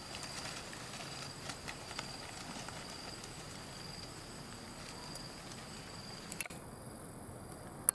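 Soft scattered crackling of dry leaves as a young monkey moves through the undergrowth, over a faint steady high-pitched hum. One sharp click near the end.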